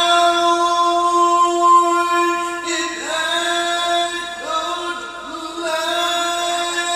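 A man reciting the Quran solo in the melodic tilawah style, unaccompanied, in a high voice. One long held note breaks off about two and a half seconds in. Shorter phrases follow, each sliding up into a sustained pitch.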